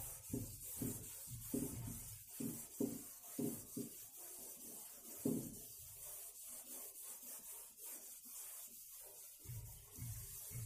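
Chalkboard duster scrubbing back and forth across a blackboard, erasing chalk writing: a run of short rubbing strokes, about two or three a second, softer for a few seconds in the middle and picking up again near the end.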